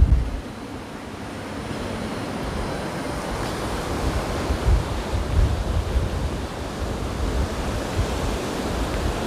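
Surf of a stormy sea: a continuous wash of breaking waves that slowly swells, with wind rumbling on the microphone now and then.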